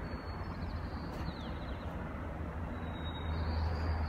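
Steady outdoor background noise: a constant low rumble with a hiss over it.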